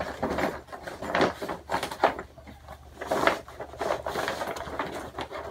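Grow tent fabric with its silver reflective lining rustling and crinkling as it is spread out and smoothed by hand, in irregular swishes.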